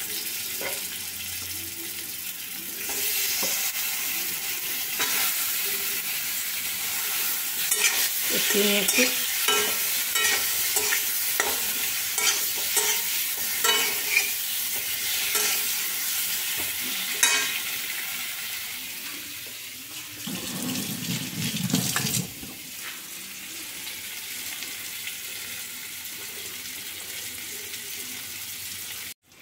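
Boiled eggs and potato pieces sizzling in hot oil in an aluminium kadai, with a metal spatula scraping and clicking against the pan as they are stirred. A brief louder low noise comes about twenty seconds in.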